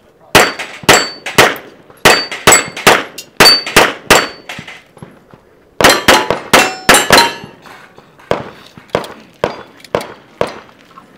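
Glock 34 9mm pistol fired in fast strings, its shots mixed with the clang and ring of steel target plates being hit. A long run of shots and hits is followed, after a pause of about a second and a half, by a shorter quick run, then by fainter, spaced reports about every half second.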